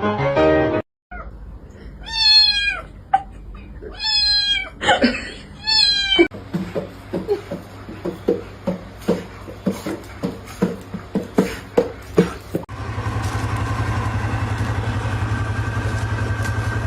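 A domestic cat meowing three times in drawn-out calls. These are followed by a run of short clicking taps, about two or three a second, and then a steady low hum.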